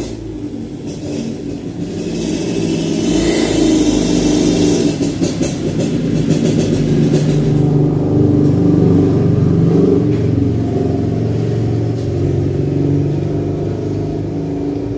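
A motor vehicle engine running and revving, louder from about two seconds in, with a quick run of sharp clicks near the middle.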